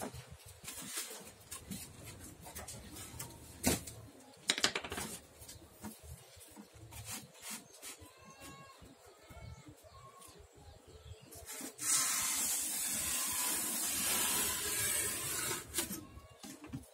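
Utility knife cutting through a styrofoam sheet along a metal straightedge: a steady scratchy hiss lasting about four seconds, starting a little past the middle. Earlier, a few sharp knocks and some faint short squeaks.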